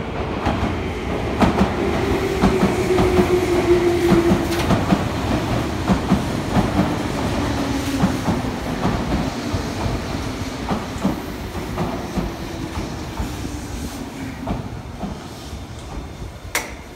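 Meitetsu 1200+1000 series electric train pulling into a platform and slowing: wheels clacking over rail joints amid a rumble, with a low whine that falls gently in pitch as it slows. It is loudest a few seconds in, then fades as the train draws to a stop, with one sharp click near the end.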